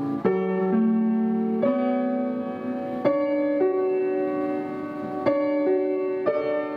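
Upright piano played slowly: a new note or chord struck every second or so, each left to ring on.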